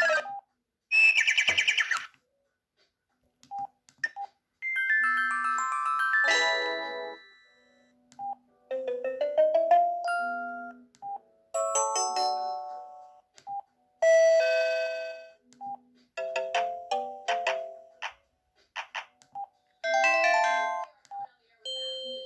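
Samsung SGH-E330 mobile phone playing its built-in short alert tones one after another: about eight or nine brief synthesized jingles and sound effects, each a second or two long, with short pauses between them.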